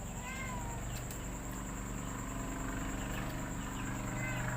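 A domestic cat meowing: one falling meow at the start and a fainter one near the end, over a steady low hum.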